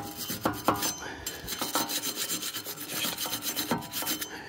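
Steel wire brush scraping rust and corrosion off a car's wheel hub in quick back-and-forth strokes, a few a second. The hub face and center pilot are being cleaned so the new brake rotor will sit evenly.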